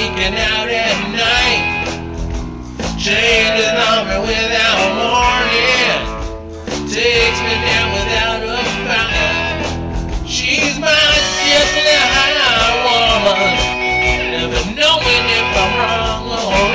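A live electric band playing: two electric guitars, bass guitar and drum kit.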